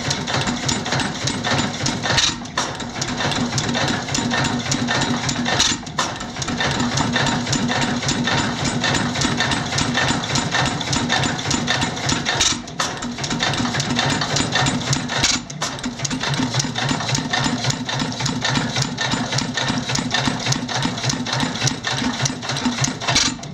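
1912 Fairbanks-Morse 15 hp hit-and-miss gasoline engine running without load: a fast, steady mechanical clatter as it coasts, with a louder beat every few seconds when it fires to bring its speed back up.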